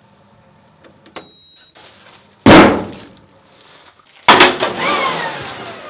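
Two loud sudden bangs about two seconds apart, each dying away; the second trails off with a falling ringing tone.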